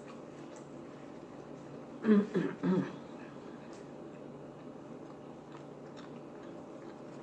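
A short vocal sound of three quick pitched syllables from the eater about two seconds in, with no words; the rest is a steady low room hum with a few faint clicks.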